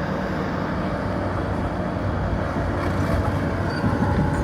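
Excavator engine running steadily, a low even drone.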